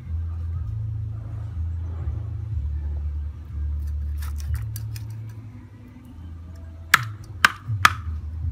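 A cleaver chopping a snake's body on a wooden chopping board: four sharp chops about half a second apart near the end. A low bass line of background music runs underneath.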